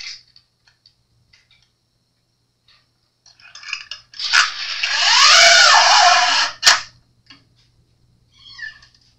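A metal bass string being pulled through the bridge of a Fender Precision Bass, a long scraping zip of about two and a half seconds in the middle, ending in a sharp click. A few small handling clicks come before it.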